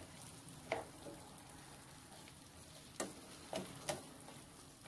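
Spatula stirring and scraping chicken pieces and sautéed vegetables around a nonstick frying pan over a faint sizzle, with a few short scrapes, one about a second in and three close together near the end.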